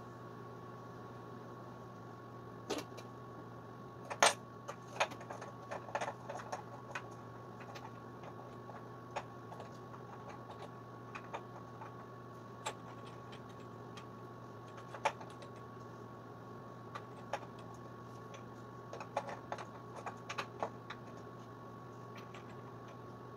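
Scattered metallic clicks and clinks of hand tools and small metal parts being handled while working on a scooter's rear transmission case. The loudest knock comes about four seconds in, with more clusters around six seconds and near the end, over a steady background hum.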